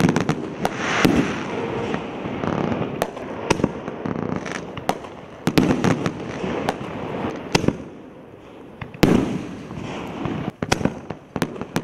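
60-gram consumer canister shells firing and bursting in the air: a string of sharp bangs and pops, irregularly spaced, over a continuous noisy wash.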